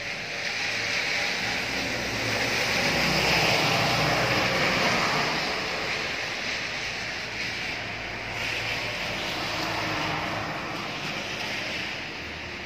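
A vehicle passing by: a rushing noise that swells to its loudest about three to four seconds in, then slowly fades, with a low hum underneath.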